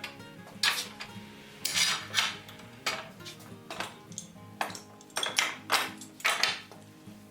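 Irregular sharp strikes and short scraping strokes of hand tools working wood, about eight to ten in all, heard over background music with sustained notes.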